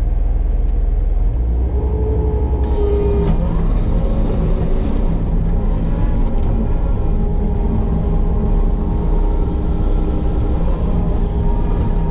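Diesel engine of a Case compact track loader working a Fecon forestry mulching head, running steadily under load. About a second and a half in the sound changes and several steady pitched tones come in over the low rumble.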